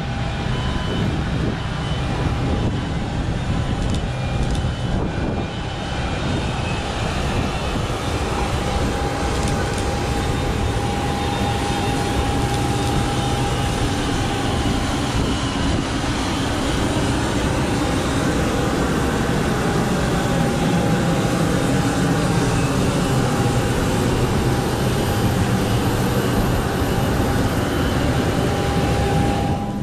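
Steady drone of a parked jet airliner, with a thin, high steady whine over it.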